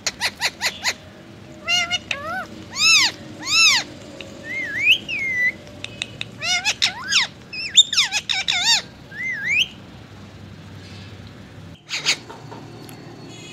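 Rose-ringed (Indian ringneck) parakeet vocalizing: a quick run of clicks, then a string of short whistled calls that rise and fall, some gliding upward, with a pause and one more sharp call near the end.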